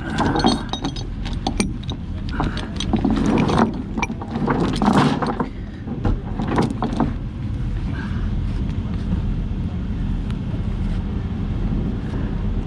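Steel chain links and hooks clinking and clanking as a chain's grab hook is hooked onto a winch cable's end hook, over an engine running steadily. The clanking stops about seven seconds in, leaving the engine.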